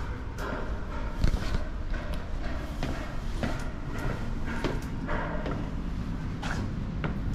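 Footsteps going down a tower staircase, a step about one and a half times a second, over a steady low rumble.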